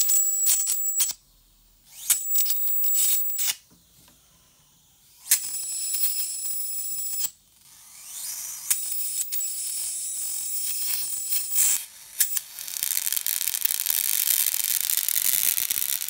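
High-voltage arc crackling and sizzling where the probe touches the fluorescent tube's glass, switched on in bursts of one to a few seconds with short silent gaps. A thin high whine runs through some bursts, and the last few seconds are one continuous hissing discharge.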